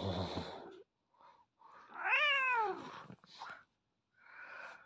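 Domestic cat meowing: one drawn-out meow about two seconds in that rises then falls in pitch, with a shorter rough sound at the start and brief cat noises near the end.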